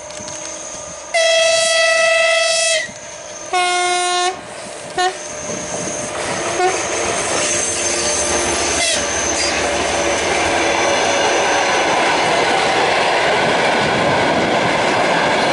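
TEP70BS diesel locomotive sounding its horn: a long blast about a second in, then a shorter, lower-pitched blast and a brief toot. The train's running noise and wheel clatter then build steadily and stay loud as it comes past.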